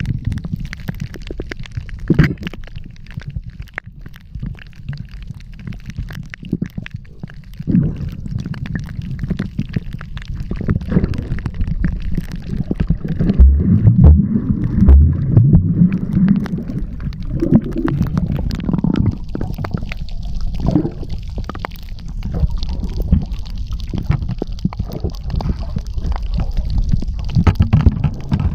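Muffled underwater gurgling and low rumbling of moving water, with scattered clicks and a louder patch of thumps about halfway through.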